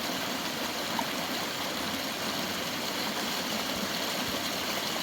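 Mountain creek running: a steady rush of flowing water.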